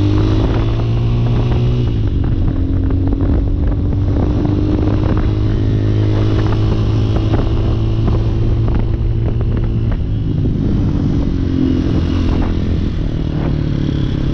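Hawk 250 dual-sport motorcycle's single-cylinder four-stroke engine running while riding at street speed, heard from the rider's position. The engine note holds fairly steady, with small changes in pitch about two seconds in and again near ten seconds as the throttle changes.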